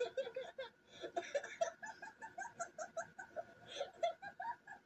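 A man laughing hard, a quick run of 'ha-ha-ha' pulses with short pauses for breath between runs.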